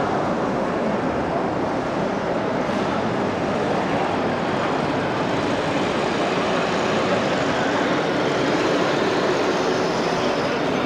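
Steady, even din of a large, busy exhibition hall, with no single sound standing out.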